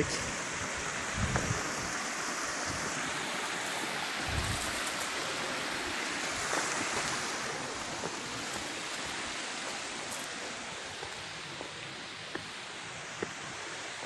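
Water of a small rocky stream running steadily, an even rushing hiss, with a couple of soft low thumps about one and four seconds in.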